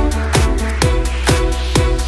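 Electronic dance-style background music with a steady kick-drum beat, about two beats a second.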